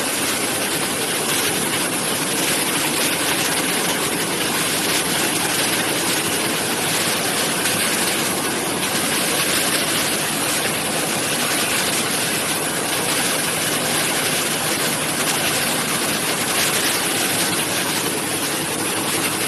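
High-speed weaving loom running, a loud steady mechanical noise that does not let up.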